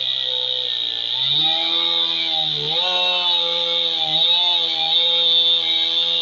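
Stihl two-stroke chainsaw cutting into a cedar log. The engine picks up speed about a second in and then runs at high revs, its pitch sagging briefly every second or so as the chain bites into the wood.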